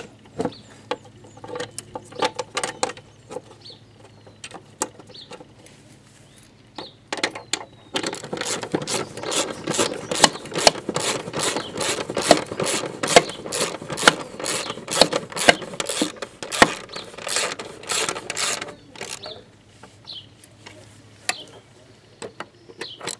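Hand ratchet clicking as a bolt is worked on a lawn mower engine mount: scattered clicks and knocks at first, then a long run of quick, even ratcheting clicks, about four a second, from about eight seconds in until near the end, when it slows back to a few clicks.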